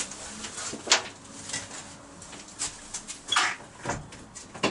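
A few scattered light clicks and knocks with a short rustle, from someone moving about and handling things.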